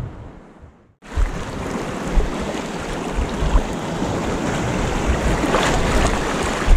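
Sea surf washing on the shore with wind buffeting the microphone; the sound fades out over the first second, then cuts back in abruptly.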